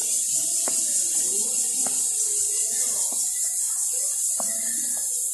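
Outdoor park ambience: a steady high hiss with faint distant voices underneath and a soft knock about once a second.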